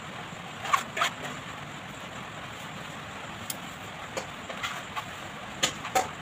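Light clicks and taps of kitchen handling over a steady low hiss: a hand spreading cooked rice in a pot, with two clear taps about a second in and several more scattered later.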